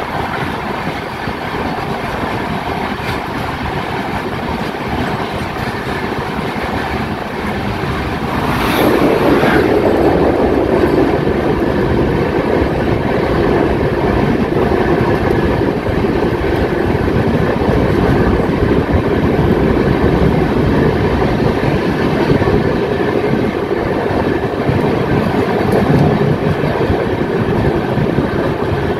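Express passenger train running at speed, heard from its open coach door: a steady rush of wheel and wind noise. About nine seconds in, an oncoming passenger train meets it on the adjacent track with a sudden whoosh, and the rush grows louder as its coaches stream past alongside.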